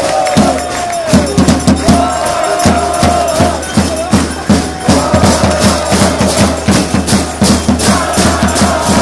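Football crowd singing a chant together in long held notes, with fast rhythmic clapping, loud and close to the microphone.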